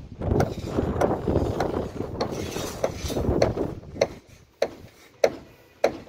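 Knocks and rustling at a building site, settling about four seconds in into sharp, evenly spaced taps about one every 0.6 s.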